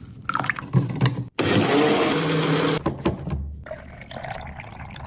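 A few clattering knocks, then an electric blender running for about a second and a half and stopping abruptly, followed by liquid being poured.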